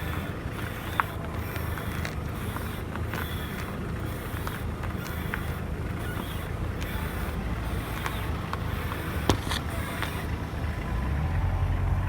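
Mazda 6 engine idling steadily, with a few faint short clicks now and then during a check of the front suspension for a squeak.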